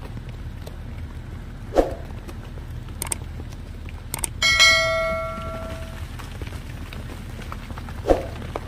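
A single metallic strike about halfway through that rings out clearly and dies away over about a second and a half, like a struck bell. There are a couple of dull thumps before and after it, over a steady low background noise.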